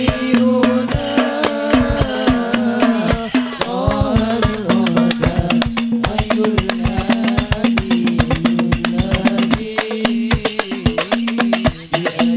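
Live sholawat music over a loudspeaker system: hand-struck frame drums and tambourine jingles beat a dense, fast rhythm under a held low tone and a wavering melody line.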